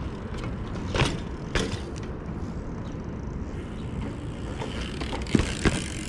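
Steady low rumble of outdoor city noise on a ground-level action camera's microphone, broken by a few sharp knocks, two of them close together near the end.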